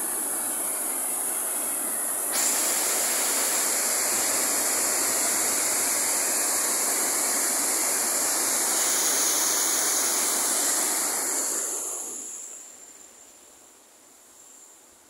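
Stream water pouring over a small, wide rock-ledge waterfall: a loud, steady rush. About twelve seconds in it fades to a faint rush.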